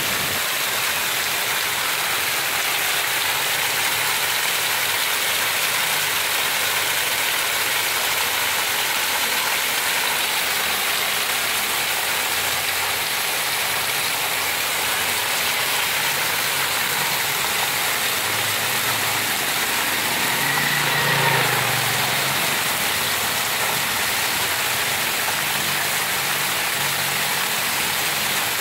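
Heavy rain falling steadily: a dense, even hiss. About three-quarters of the way in, a low rumble swells briefly and fades.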